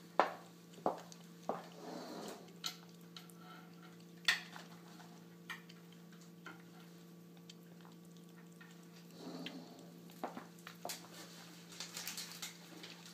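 A cat licking yogurt off a metal teaspoon: irregular sharp clicks and clinks as its tongue and teeth knock the spoon, several in the first few seconds, a quieter stretch in the middle, then a busier cluster of clicks and soft licking near the end. A faint steady hum runs underneath.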